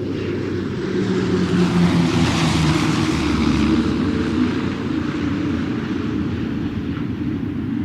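Airplane engine droning in flight as it passes by, swelling over the first couple of seconds and then slowly easing off.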